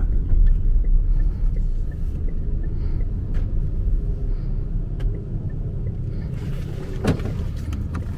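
Low, steady rumble of a car's engine and tyres heard from inside the cabin as it drives slowly. A couple of sharp knocks come near the end.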